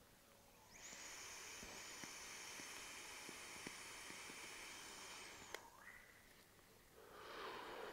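Faint steady hiss of a long direct-lung draw on a 24 mm rebuildable dripping atomizer, its single coil firing at 25 W. The draw lasts about five seconds and ends with a click, and a short breathy exhale of vapour follows near the end.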